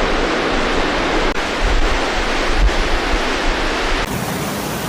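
Steady noise of rushing floodwater, with wind rumble on the microphone; the sound changes abruptly about four seconds in, as at a cut between clips.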